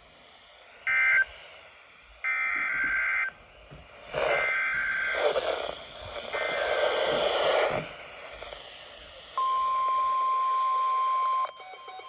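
NOAA weather radio sounding emergency alert data bursts: several short buzzy digital tone bursts, then noisier stretches, then a steady single alert tone for about two seconds near the end. The sound comes through the radio's small speaker.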